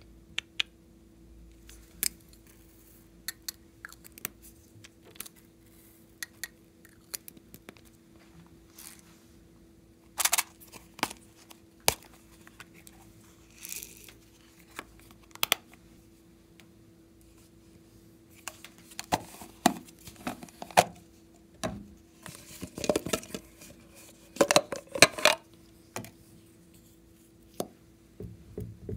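Small plastic cosmetic containers being handled and opened by hand: scattered sharp clicks and taps of caps and lids, with short bursts of peeling and rustling that come thickest in the last third. A faint steady hum sits under it throughout.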